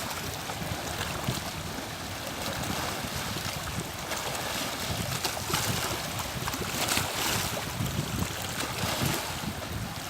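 Wind gusting on the microphone, with a steady rushing hiss behind it.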